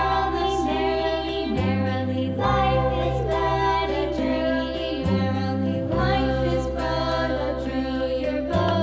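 Background music: a melody over held low bass notes that change every few seconds.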